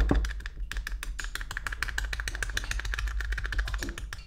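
Triskel Hookah awl punching holes through hookah foil stretched over a bowl: a fast, even run of sharp little clicks, several a second, as the tip pierces the foil again and again.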